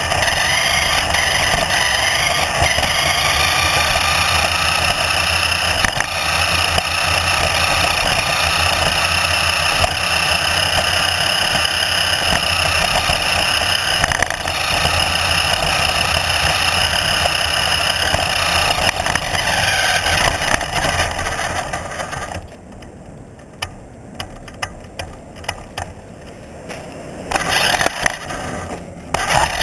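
A motor running with a steady whine that drifts slowly in pitch. About three quarters through it drops away, leaving scattered clicks and rattles, then it picks up again near the end.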